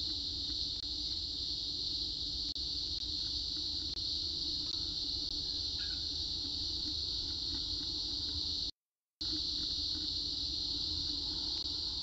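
Cicadas calling in a steady, unbroken high drone, with a faint low hum beneath. The sound cuts out completely for about half a second some nine seconds in.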